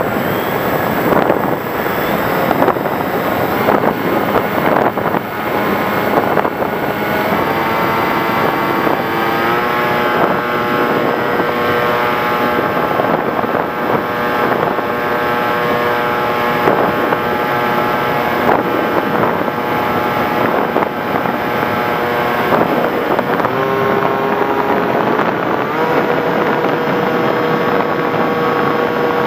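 Onboard sound of an FPV Raptor RC plane in flight: wind rushing over the microphone, joined about a quarter of the way in by the steady whine of its electric motor, whose pitch steps up and down a few times as the throttle changes.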